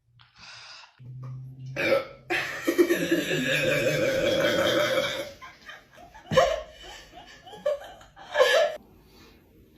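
A person burping: one long drawn-out burp of about three seconds, then shorter, sharper burps or hiccup-like gulps about two-thirds of the way in and again near the end.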